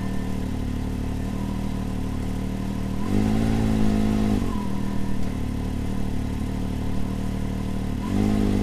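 Can-Am Maverick X3 DS Turbo's turbocharged three-cylinder engine idling, with a short run-up in revs about three seconds in and another near the end. The throttle is blipped to just over 2,000 rpm to find where the newly fitted P-Drive primary clutch starts to grab.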